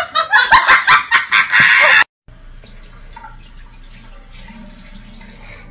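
A person's loud, shrieking laughter in quick bursts, about ten in two seconds, cut off suddenly. A faint steady low hum follows.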